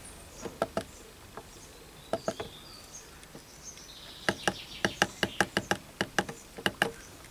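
Buttons on a variable frequency drive's keypad clicking as they are pressed to step up the parameter number. A few separate clicks come first, then a quick run of about five a second in the second half.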